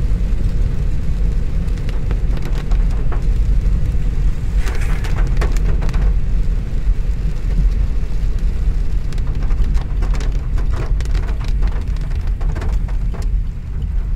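Rain pattering on a car's windshield and roof, heard from inside the cabin as many sharp drop ticks over the steady low rumble of the car driving on a wet road.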